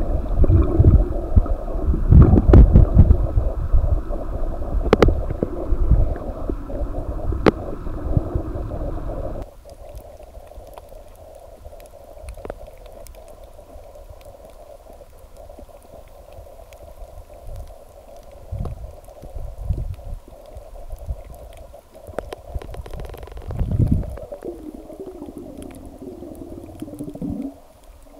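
Underwater sound picked up by a camera in its housing: loud low water rush with knocks and clicks, dropping abruptly about nine seconds in to faint water noise with scattered low rumbles.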